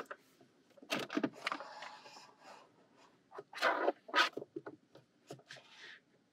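Handling noise of a wiring cable being fed through an open dashboard switch-panel opening: irregular scraping and rubbing against plastic trim, with several sharp clicks and knocks.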